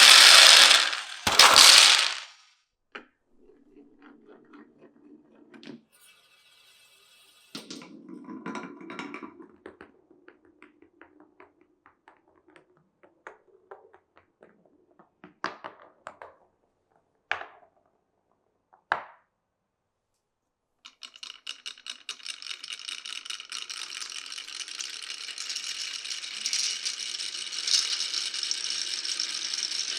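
Marbles rolling along a wooden marble run, with scattered clicks and a few sharp clacks as they drop and strike the pieces. In the last third a dense, continuous rattle builds up as many marbles run at once.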